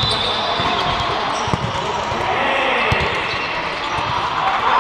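Indoor volleyball play echoing in a large hall: sharp thuds of the ball being hit and bouncing, with players calling out.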